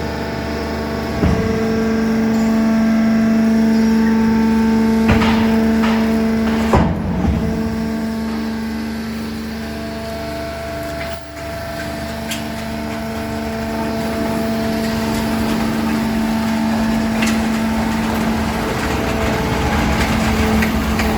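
Teyun 250-ton hydraulic metal baler running: a steady hydraulic pump hum, with a few sharp metal clanks about 1, 5 and 7 seconds in as scrap metal is crushed in the press chamber.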